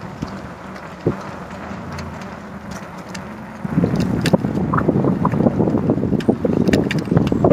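Wind buffeting a phone's microphone on a moving bike: a steady low rumble that turns louder and gustier about halfway through.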